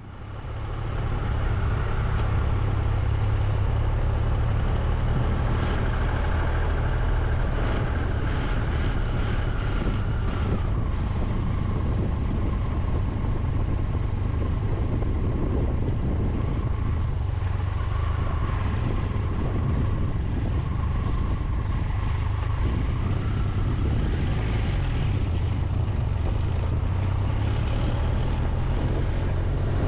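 Onboard sound of a Triumph Tiger 1200 motorcycle being ridden: its three-cylinder engine running with a steady low rumble. The sound fades in over the first second or so.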